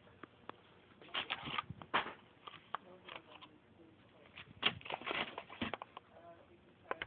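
Plastic blister packs on card backs crinkling and clicking as they are handled and flipped close by, in two flurries of quick rustles: about a second in and again past the middle.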